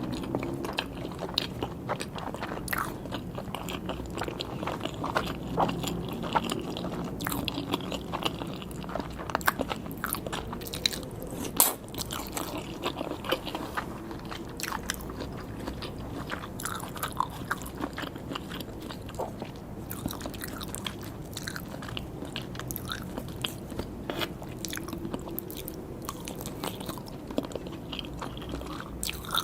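Close-miked eating: a person chewing and biting sushi and sashimi, with a continuous run of small wet clicks and crackles from the mouth.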